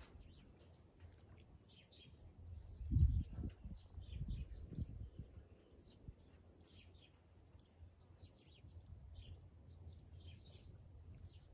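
Small birds chirping in short, high calls over a low rumble, with a louder low thump or gust about three seconds in.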